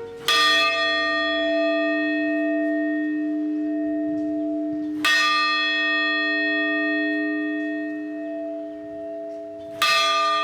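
A single church bell struck three times, about five seconds apart, each stroke ringing on with a long, steady hum until the next one.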